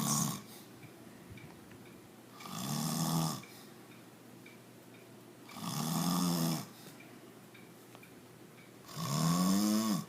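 An elderly man snoring in his sleep: three long snores about three seconds apart, each with a low pitch, after the tail of one more right at the start.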